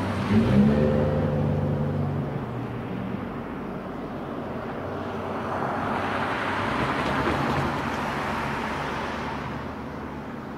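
Cars passing on a road. An engine note climbs briefly near the start, then a car's engine and tyre noise swells and fades, loudest around seven seconds in.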